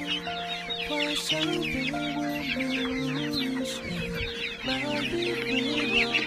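A crowd of young poultry peeping continuously: many overlapping short, high chirps. Background music with held notes plays underneath.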